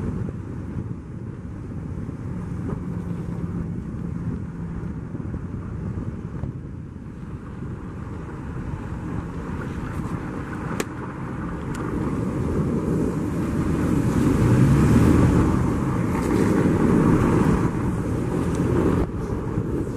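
A vehicle driving slowly over packed snow: a steady engine hum with tyre rumble and hiss, growing louder in the second half.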